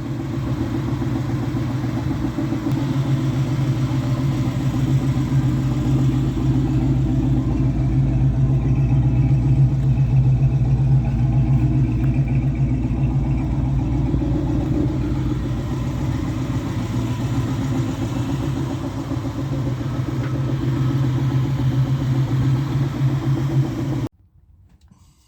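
Car engine running steadily, with a low, even drone that swells slightly in the middle and cuts off suddenly near the end.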